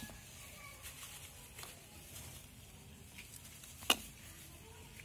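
Kitchen knife cutting peeled raw potatoes in half by hand over a bowl: faint cutting and handling ticks, with one sharp click about four seconds in.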